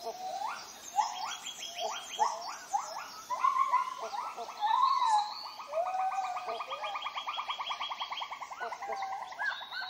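Tropical forest animals calling: short rising whoop-like notes repeated roughly twice a second, then, from about three seconds in, a fast pulsing trill that runs on for several seconds with other calls overlapping it.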